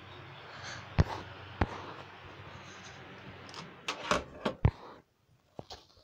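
Ultra 30 cm table fan (model V-16B) running: a steady whir of air with a low motor hum. Sharp clicks and knocks come through it about a second in and again in a cluster around four seconds in, and the steady noise cuts off suddenly near the end.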